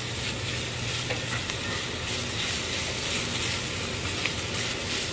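Sliced bell peppers and onions sizzling steadily in a hot skillet as a spatula stirs and scrapes through them, with a few light clicks of the utensil against the pan.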